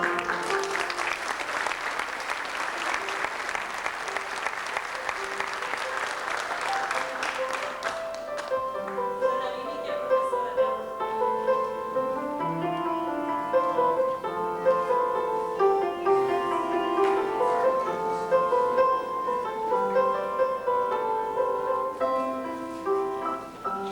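Audience applauding for about the first eight seconds over instrumental background music. The applause then stops and the instrumental melody continues alone.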